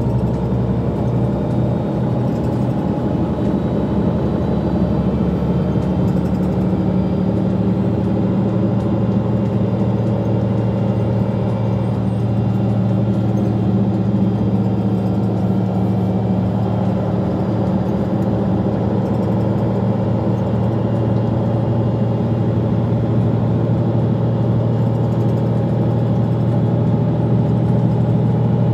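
Mercedes-Benz Citaro G articulated bus's diesel engine and Voith automatic drivetrain running steadily while the bus cruises, with a steady low engine hum over road and tyre noise, heard from inside the cabin.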